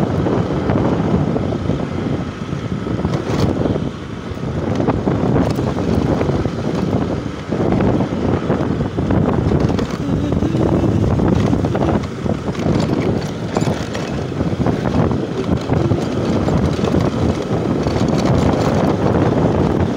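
Wind buffeting the microphone over a motorbike engine running steadily as it rides along a rough dirt road, the level rising and falling unevenly.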